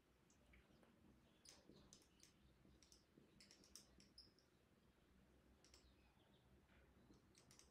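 Faint, scattered squeaks and ticks of a dry-erase marker writing on a whiteboard.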